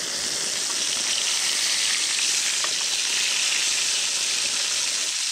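Carne de sol (salted sun-dried beef) frying in hot margarine in a pan: a steady sizzle.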